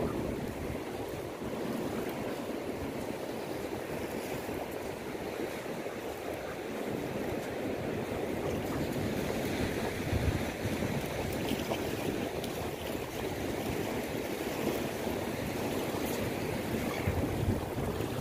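Surf and small waves washing onto a sand beach, a steady rushing sound. Wind buffets the microphone now and then with low rumbles, most plainly about ten seconds in.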